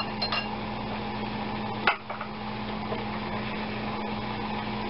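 Vinegar-and-white-wine reduction with shallots and tarragon at a hard boil in a glass saucepan over a gas flame: steady bubbling and hiss over a constant low hum. A few light clicks sound near the start, and a sharp knock comes about two seconds in.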